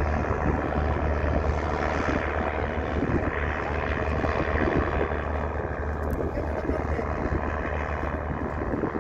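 Motorboat engine running steadily under way, a constant low hum beneath a rushing noise.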